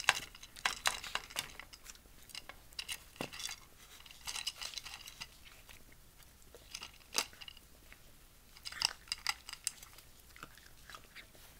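Shiba Inu puppy eating dry kibble from a bowl: irregular crunching and sharp clicks of kibble against the bowl, coming in quick clusters.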